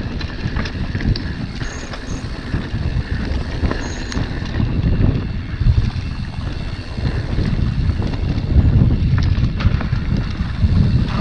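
Mountain bike rolling fast down a dirt and gravel trail: wind buffeting the microphone over a steady rumble of tyres on dirt, with occasional clicks and knocks from the bike.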